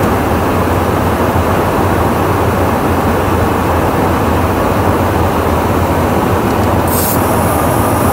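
Steady rush of airflow and engine drone inside a KC-135 tanker's boom operator pod in flight, with a low hum underneath. A short high hiss comes about seven seconds in.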